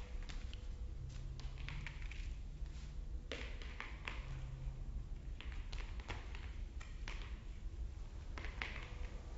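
Irregular light taps and clicks of a cat's paws and the ribbon wand toy striking a smooth hard floor as the cat swats at it, with a sharper knock about three seconds in, over a steady low hum.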